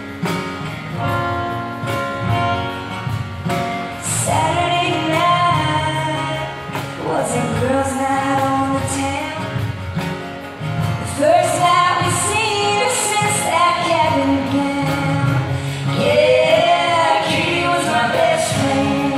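Live acoustic band music: strummed acoustic guitar and cajón, with a woman singing from about four seconds in and a man's voice joining near the end.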